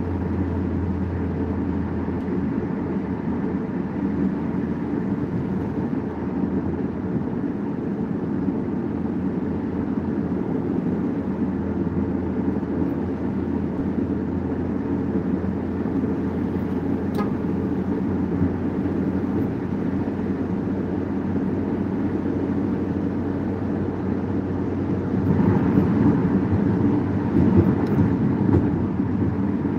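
Steady road and engine noise heard inside a car cruising on a highway. It grows louder for the last few seconds.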